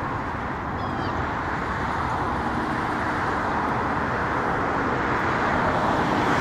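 Road traffic noise: a steady rushing sound of passing vehicles that grows slowly louder toward the end.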